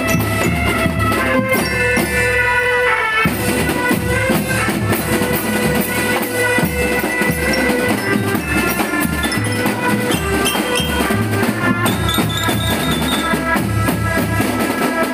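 School drum band playing: a tuned melody line of held notes over a steady beat of bass and snare drums.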